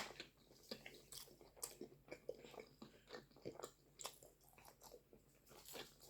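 Close-miked chewing of a mouthful of food, faint, irregular wet clicks and smacks of the mouth.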